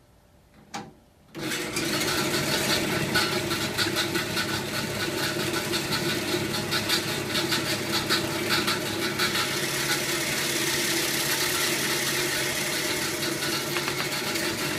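Bandsaw switched on about a second in, then running steadily; in the later part its blade cuts into a frozen polyurethane rod fed through on a crosscut sled.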